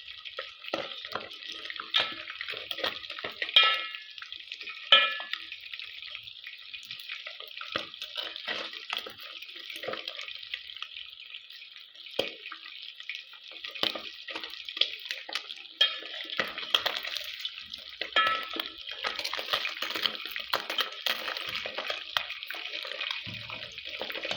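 Tilapia deep-frying in hot oil: a steady sizzle full of crackles and spits, broken now and then by sharper clicks and pops.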